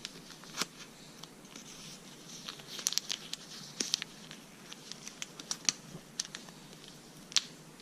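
Plastic bag crinkling and crackling in short irregular bursts as brake caliper slide pins are worked around inside it to coat them with grease.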